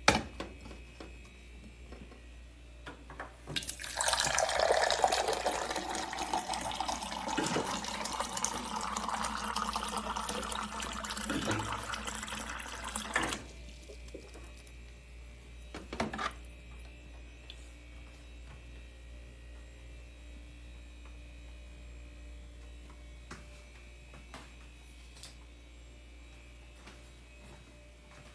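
Water running from a water cooler's dispenser tap into a cup for about ten seconds, the pitch of the filling rising as the cup fills, then stopping abruptly. A single click follows a few seconds later, over a faint steady low hum.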